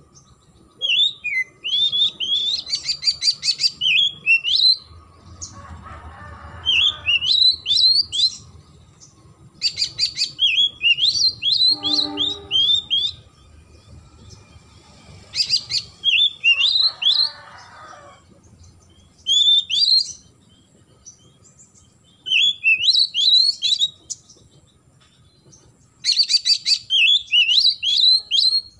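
Oriental magpie-robin singing: phrases of rapid, high, rising notes, each one to three seconds long, repeated about every three to four seconds with short pauses between.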